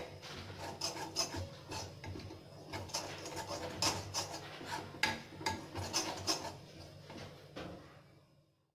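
Steel spoon scraping and stirring grated coconut in a metal kadhai as it dry-roasts, in irregular rasping strokes, about one or two a second. The strokes stop shortly before the end.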